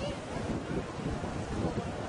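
Wind noise on the microphone over the wash of breaking surf.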